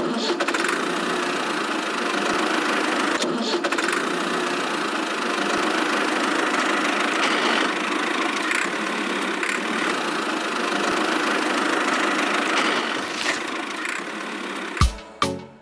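A small motor running steadily without changing speed, stopping about 15 seconds in.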